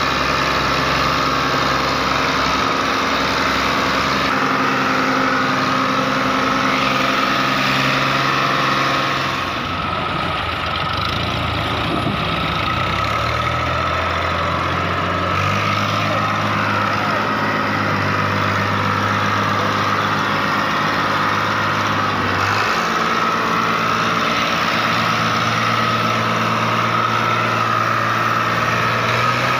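Fiat 480 tractor's three-cylinder diesel engine running under load while hauling a heavily loaded sugarcane trolley. It runs steadily and loudly, with the engine note shifting to a different speed a few times.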